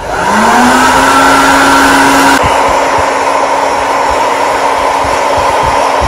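Small electric hot-air fryer switched on, its fan motor spinning up with a rising hum and then running steadily under a loud rush of blown hot air as it fries vadiyalu without oil. The rushing eases a little a couple of seconds in.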